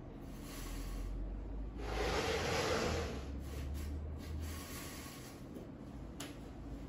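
Soft rubbing and rustling noises that swell and fade, loudest about two to three seconds in, with one sharp click near the end.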